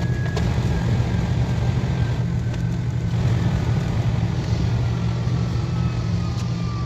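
KTX high-speed train running at speed: a steady low rumble with a faint whine slowly falling in pitch.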